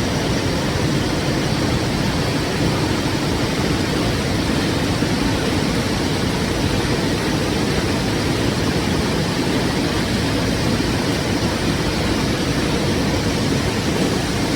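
River water flowing in a steady, deep rush with no breaks or changes.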